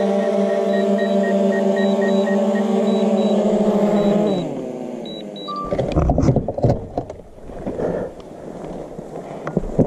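DJI quadcopter drone's propellers running with a steady buzzing hum, with short high beeps repeating, then spinning down in pitch and stopping about four and a half seconds in as the drone lands. Irregular knocks and rustling follow.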